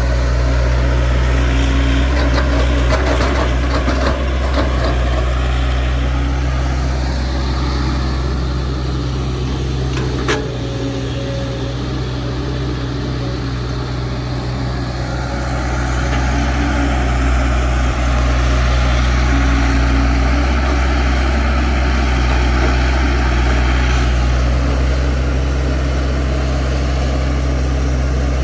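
Heavy earthmoving machine's engine running steadily with a deep hum, while a higher tone rises and falls as it works; a single sharp click about ten seconds in.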